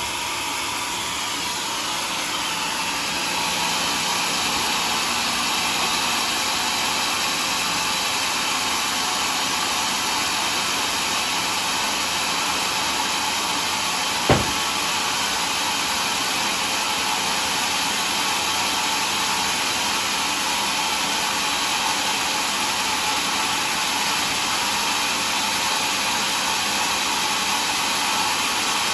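Homemade sawmill running steadily, its saw cutting through a log with a constant loud hiss-like whir. A single sharp knock sounds about halfway through.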